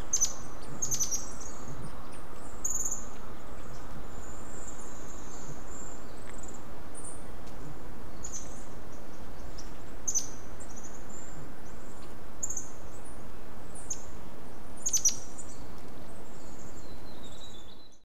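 Forest bird sounds: small songbirds giving short, sharp, high-pitched chirps and brief whistles at irregular intervals over a steady background hiss.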